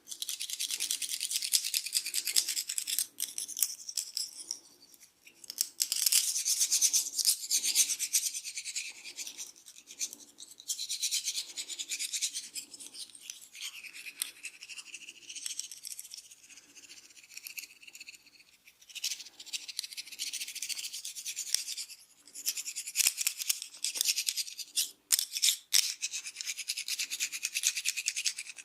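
Fingers rapidly scratching and rubbing through hair and over the scalp close to the microphone: a dense, crackling rustle that comes in bursts with short pauses.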